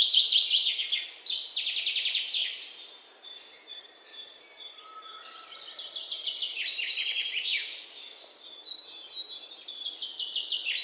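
Small songbirds chirping and singing in fast trills of rapidly repeated notes, loudest near the start.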